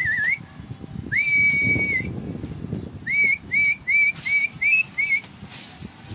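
A person whistling to a flock of flying pigeons. A warbling whistle ends, a long held whistle follows, then six short rising whistles come in quick succession, over a low background rumble.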